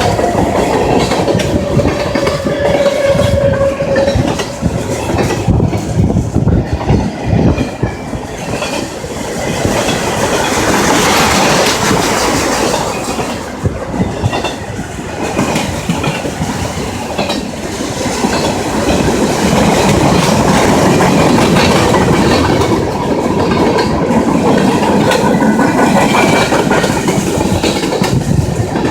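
Norfolk Southern freight train rolling past, its car wheels clacking continuously over the rail joints, with a brief steady squeal about two seconds in.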